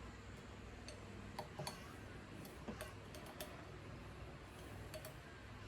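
Faint, scattered light clicks and taps from parts and tools being handled during mini bike assembly, about a dozen spread over a few seconds, over a steady low hum.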